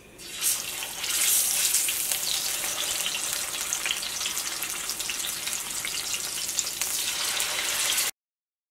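Spice-coated sardines sizzling and crackling as they fry in hot oil in an iron wok. The sizzle swells within the first second as the fish go into the oil, holds steady with a dense patter of small spits, and cuts off abruptly near the end.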